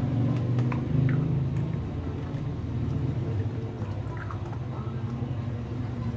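A steady low motor hum, with light clicks of plastic toys being handled in a water-filled basin.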